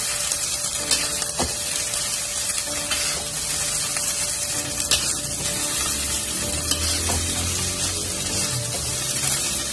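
Fried rice sizzling in a metal wok as it is stir-fried with a spatula, a steady hiss with a few sharp scrapes and knocks of the spatula against the pan.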